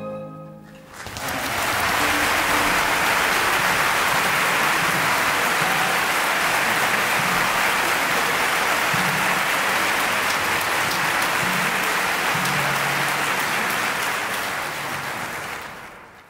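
The music's last chord dies away, then a large audience applauds; the applause starts about a second in, holds steady and fades out near the end.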